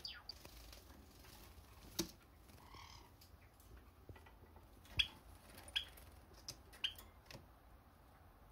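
Java sparrows making a few sharp, short clicks and chips, scattered about six times, the loudest about five seconds in, over a quiet room hiss.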